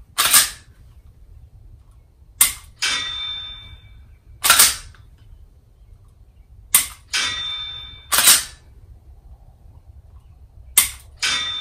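Dry-firing a striker-fired HK VP9 pistol loaded with a laser training cartridge: three sharp trigger clicks, each answered about half a second later by the phone app's shot signal, a ringing tone that fades away. Between shots come louder sharp clacks as the slide is worked to reset the trigger.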